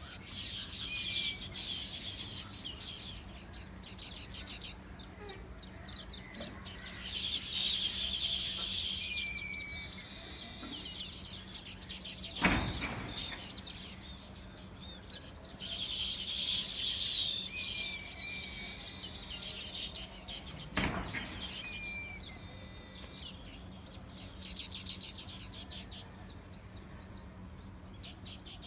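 Many small birds chirping in dense bursts a few seconds long, with short falling notes between the bursts. Two dull thumps stand out, one about halfway through and one about nine seconds later.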